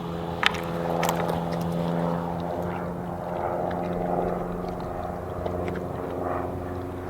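A Labrador crunching and chewing a dill pickle spear, heard as scattered short crunchy clicks, over a steady motor-like drone in the background.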